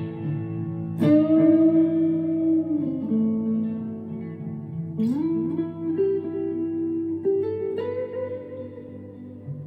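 Chapman ML3 Pro Traditional electric guitar with Seymour Duncan Hot Tele pickups played slowly in an ambient style. Notes and chords are struck about a second in, about five seconds in and again near the end, each left to ring out. A note bends upward just after the second attack.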